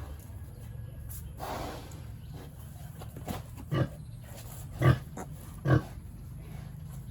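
Pigs grunting: three short, loud grunts about a second apart in the second half, with a brief rustle before them and a steady low hum underneath.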